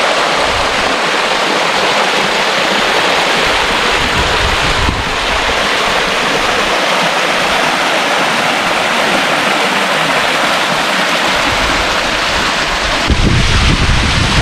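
Steady rush of a stream cascading over rocks. A low rumble of wind on the microphone joins near the end.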